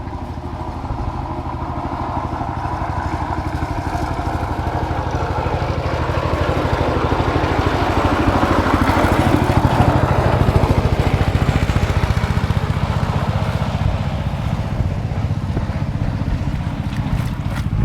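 A small engine running with a fast, even pulse. It grows louder toward the middle and then eases off, as if passing close by.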